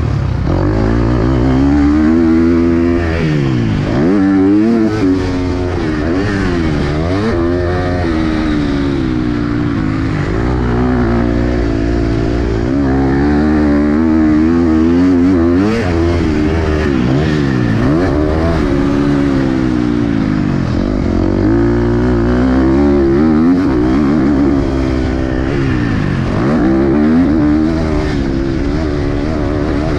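KTM 250 SX-F four-stroke single-cylinder motocross engine heard onboard, revving hard and dropping off again and again every second or few seconds as the throttle is worked.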